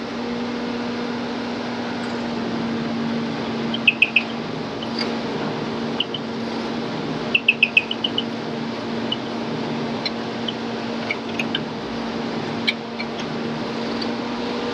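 Gardner double-disc grinder running with a steady low hum. Two quick runs of short high pings, about four a few seconds in and about five near the middle, with scattered single ticks.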